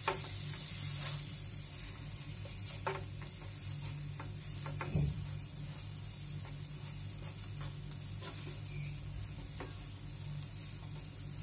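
Slotted wooden spatula stirring grated fresh coconut and jaggery in a frying pan, with a steady sizzle as the jaggery melts and its moisture cooks off. A few scrapes and taps of the spatula on the pan, the loudest about five seconds in.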